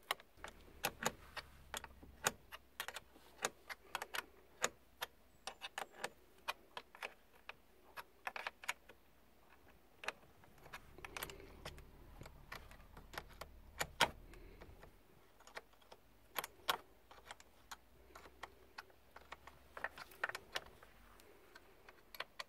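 Irregular metal clicks and taps of a small wrench on car battery terminal clamps as the clamps are pushed back onto the posts and their bolts lightly tightened.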